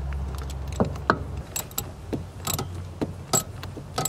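Screwdriver tightening hose-clamp screws on rubber heater hoses: irregular sharp metallic clicks and ticks, a few a second. A low steady hum sits under the first second or so.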